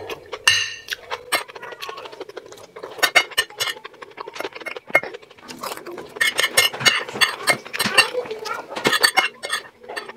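Metal fork and spoon clinking and scraping against a ceramic plate, scooping up rice, with close-miked chewing and mouth sounds. Many sharp, irregular clinks, busier in the second half.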